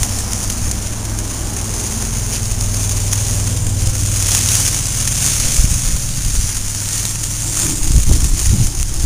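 Wood fire burning under a steak on the grill, a steady hiss, with wind buffeting the microphone and a steady low hum underneath.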